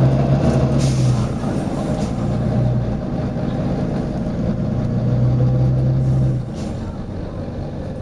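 Volvo B9TL double-decker bus's diesel engine running with a steady low drone, with short hisses of air from its pneumatic system, one about a second in and another about six and a half seconds in, just as the engine note drops away.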